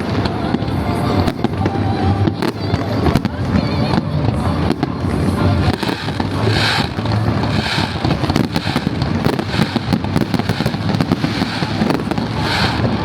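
A fireworks display: a continuous barrage of bangs and crackling bursts, dense and without pause.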